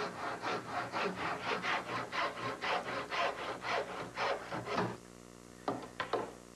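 Hand dovetail saw cutting through the end of a mahogany guard rail with quick, even back-and-forth strokes, about three to four a second. The sawing stops about five seconds in and is followed by two light knocks.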